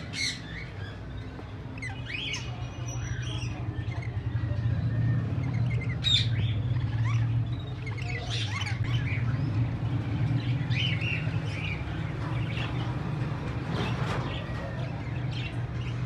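Many caged birds, parrots among them, chirping and squawking in short, scattered calls over a steady low hum.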